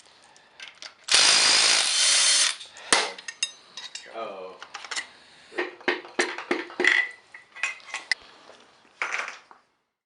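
A power tool runs in one burst of about a second and a half on the bolts of a Honda B18C1 engine's bottom end. Metal parts then clink and tap many times as the engine is taken apart.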